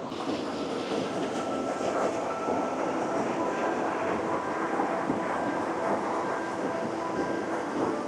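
Waterfall rushing steadily: an even, continuous noise of falling water.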